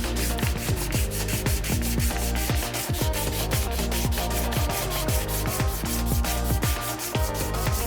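Background electronic music with a steady beat: a fast ticking pulse over low, dropping kick-drum thuds and held tones.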